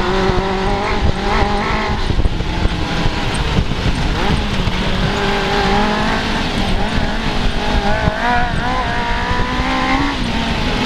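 Suzuki GSX-R600 inline-four motorcycle engine in an offroad buggy, running under way with its pitch rising and falling as the throttle is worked, over a steady low rumble.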